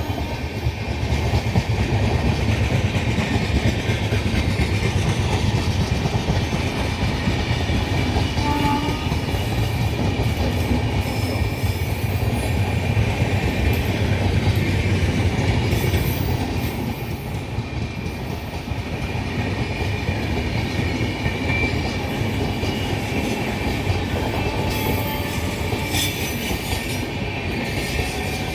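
Indian express passenger train passing at speed: a steady rumble with rhythmic clatter of wheels over rail joints, and faint wheel squeal.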